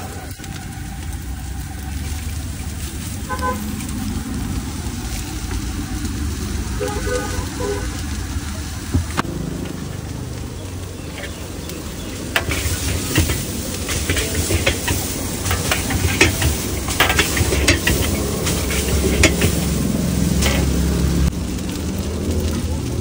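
Chowmein noodles and vegetables sizzling in a large wok over a steady low rumble. From about halfway through, a metal utensil taps and scrapes against the wok many times as the noodles are lifted and tossed.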